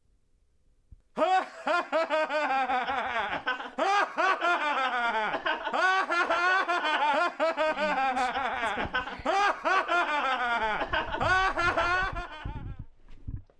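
A person laughing hard in rapid, repeated bursts, starting about a second in and stopping shortly before the end.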